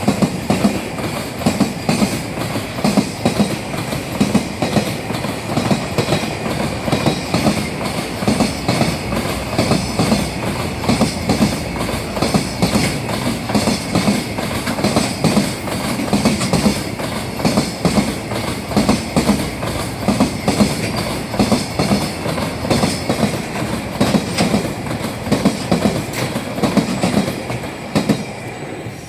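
Freight train wagons behind an EF210 electric locomotive rolling past a level crossing: a continuous rhythmic clatter of wheels over the rail joints. The clatter drops away sharply near the end as the last wagon clears.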